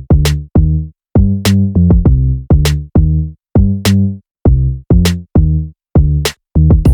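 Background electronic music: a drum-machine beat with short, punchy bass notes and crisp clicks in a steady rhythm.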